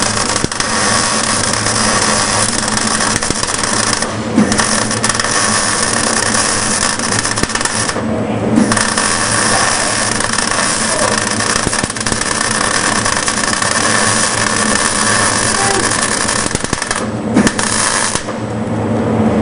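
Electric arc welder running with a loud, steady crackling hiss as the arc burns, broken by short pauses about four, eight and seventeen seconds in, and cutting off shortly before the end.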